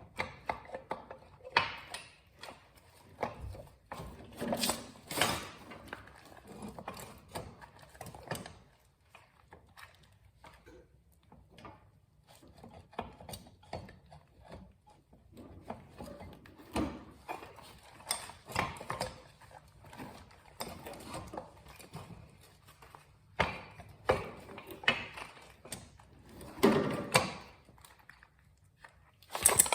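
Irregular metallic clicks, clinks and knocks of hand tools and motorcycle rear-wheel parts being handled and fitted, with a heavier clunk a little before the end.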